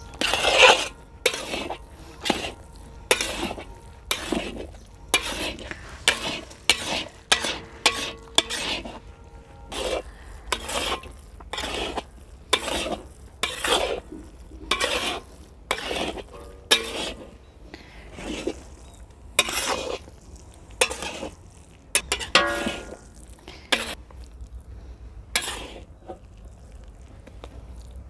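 A long metal spatula scraping and stirring thick, cooked-down carrot halwa in a large iron kadai, one to two scrapes a second on the pan's metal. The strokes thin out near the end.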